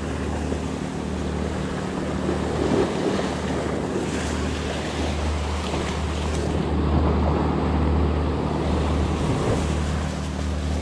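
Sea surf washing and breaking against shore rocks, with a steady low wind rumble on the microphone.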